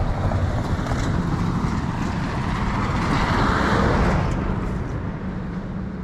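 A road vehicle passing by: its engine and tyre noise swells to a peak a little past halfway, then fades, over a steady low rumble.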